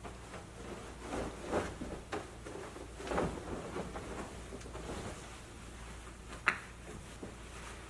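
Bedding being handled: a thick comforter rustling and soft thumps on a mattress, in several short bouts, with one sharp click near the end.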